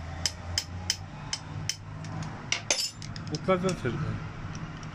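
Diesel injection pump test bench running with a steady low hum, while sharp metallic clicks come about three times a second.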